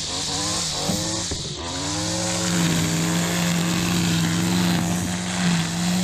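Gas string trimmer engine revved up and down a few times, then held steady at high revs from about two seconds in as the line cuts into tall grass.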